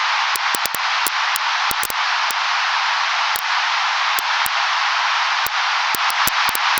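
Fireplace fire crackling: irregular sharp pops and snaps, several a second, over a steady hiss.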